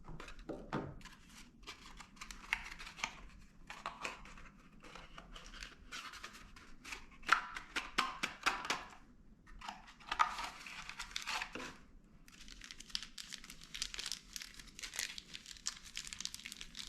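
Plastic packaging being handled: irregular crinkling and tearing in bursts, as small parts are taken out of their wrapping.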